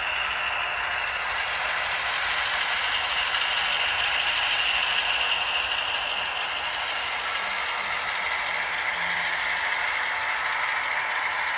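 HO scale model train rolling past close up: a steady rattle of metal wheels on the rails along with the locomotive's running gear, a little louder in the middle as the locomotive goes by.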